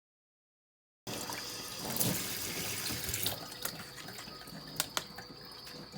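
Water running from a tap into a sink, with a few sharp clicks and knocks. It starts abruptly about a second in.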